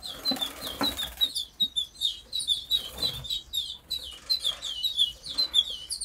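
Many canaries and finches chirping and twittering, quick short calls overlapping without a break, with a few soft knocks and rustles.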